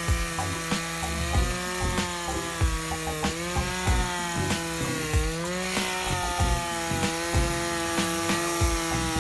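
Echo PAS-280 two-stroke power head running at high speed, driving the Pro Sweep bristle broom across the sidewalk, its pitch wavering a little under load around the middle. Regular low thumps come about every three-quarters of a second.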